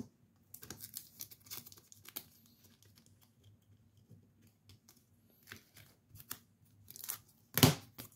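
Plastic card sleeves and packaging being handled: a run of short crinkling, scraping rustles, sparser in the middle, with one louder rustle near the end.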